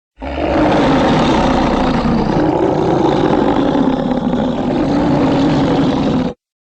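Allosaurus sound effect: one long, low, growling call lasting about six seconds, with a slightly wavering pitch, starting and cutting off abruptly.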